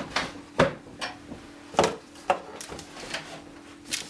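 Handling of packaging and items on a table: a few sharp knocks and clacks, about four loud ones, with lighter clicks between.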